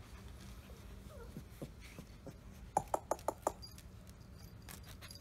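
Rottweiler puppies squeaking: a quick run of five short, high squeaks about three seconds in, with a few faint clicks near the end.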